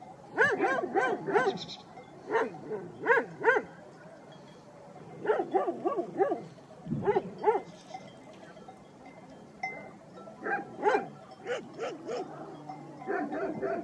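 Shepherd dogs barking in short bouts of several barks, with pauses between, during a territorial standoff between dogs.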